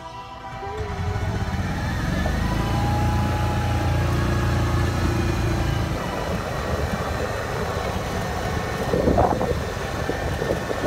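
Golf cart driving along, its motor and running gear giving a steady low rumble that builds over the first two seconds and then holds, with some brief rattling about nine seconds in.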